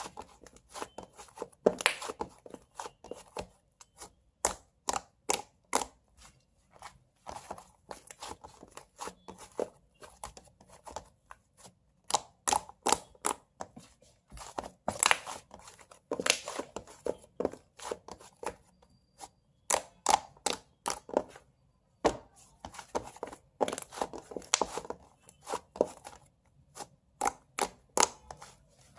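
A long series of short, sharp clicks and taps at irregular spacing, some in quick clusters of several at a time.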